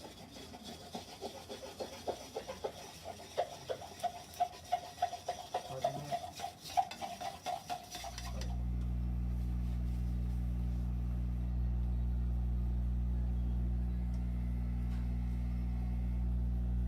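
A spatula scraping and stirring dental investment paste in a mixing bowl by hand, quick irregular rubbing strokes. About eight seconds in, an investment mixer's motor starts and runs with a steady low hum.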